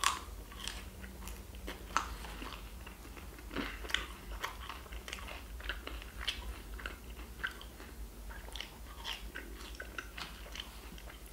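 Close-up mouth sounds of a man chewing fried potato fries: irregular short wet clicks, several a second, with a sharper click about the moment he starts.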